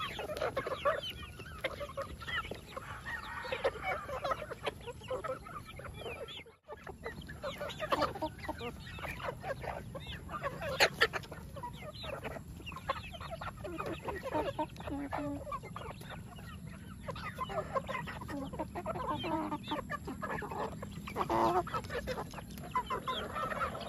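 A flock of mixed-breed native chickens clucking as they crowd in to be fed, many short calls overlapping. The sound drops out for a moment about six and a half seconds in.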